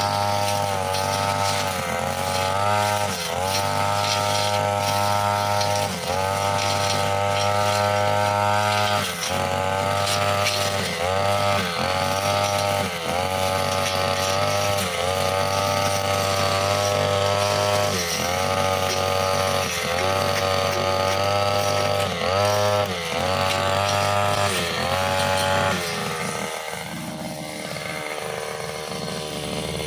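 Backpack brushcutter engine running at high revs with a bladed cutter. The pitch dips briefly and recovers every second or two as the blade bites into thick grass and ferns. Near the end the throttle is released and it drops to a lower, quieter idle.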